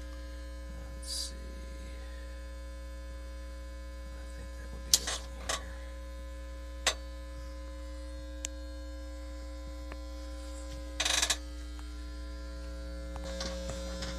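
Steady electrical mains hum, low and buzzy with many overtones, from the wired-up audio rig. It is broken by a few short clicks from handling the gear, and by a louder brief burst of handling noise about eleven seconds in.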